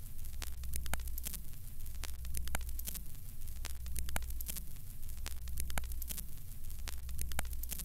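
Surface noise of an old record: crackle and scattered clicks over a steady low hum, with no music yet.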